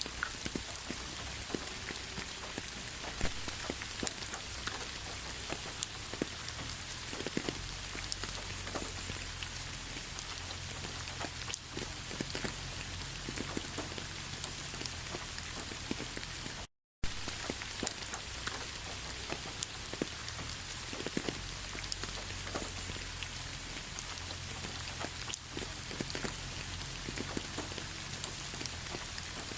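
Steady rain falling, with many separate drops striking a surface. The sound cuts out completely for a fraction of a second about seventeen seconds in.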